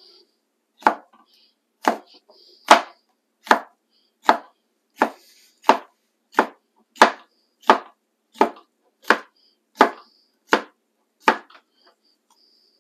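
Large kitchen knife dicing a banana pepper on a wooden cutting board: about fifteen evenly paced chopping strokes, roughly three every two seconds, stopping shortly before the end.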